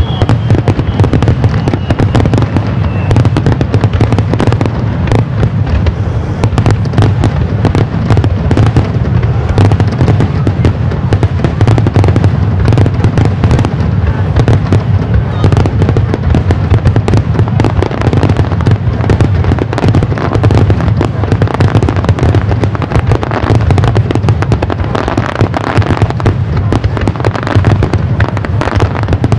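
Aerial fireworks going off in a dense, continuous barrage, rapid sharp cracks over a steady low rumble of booms with no pause.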